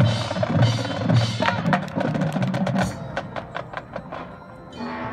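High school marching band playing a percussion-driven passage: quick, sharp clicking strikes over low drum strokes, thinning out about three seconds in. A held chord comes in near the end.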